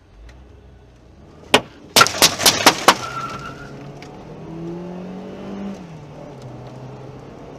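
Six gunshots fired at the car: one about one and a half seconds in, then five in quick succession, about four a second. The car's engine then revs as it accelerates away.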